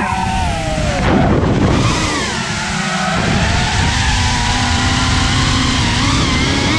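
5-inch FPV quadcopter's T-Motor Pacer 1950KV motors on a 6S battery whining, the pitch rising and falling with the throttle, over heavy wind rumble on the onboard camera's microphone. The rumble swells about a second in.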